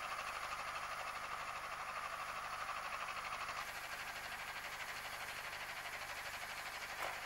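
Tracked snowcat running over snow: a steady, even engine-and-track noise. The sound changes abruptly a little past halfway, and there is a short click near the end.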